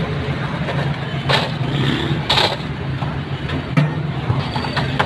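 Roadside street noise: a motor vehicle engine idling with a steady low hum, with two short noisy bursts a little over a second apart.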